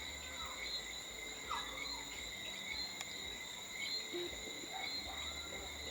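Night insect chorus: a steady, unbroken high trilling, typical of crickets, with a few faint short chirps below it.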